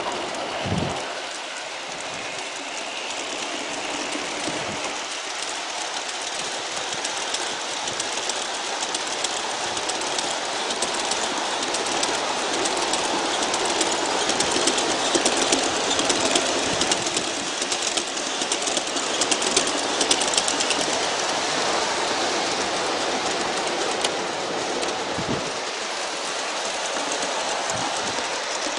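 G-scale model train of about forty cars, pulled by five Aristo-Craft ALCO diesel units, rolling along garden-railway track with its wheels clicking over the rail joints. It grows louder midway as it passes close, then eases off. A brief low thump comes about a second in.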